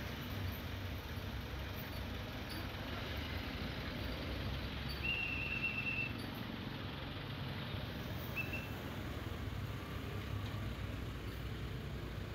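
Road traffic: vehicle engines running and passing at low speed, a steady low hum. A thin high tone sounds for about a second around five seconds in, and briefly again a few seconds later.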